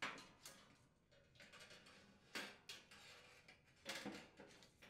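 Faint clatter of a sheet-metal refrigerator access panel being fitted onto the cabinet's rear frame: a few light knocks and scrapes, the loudest right at the start.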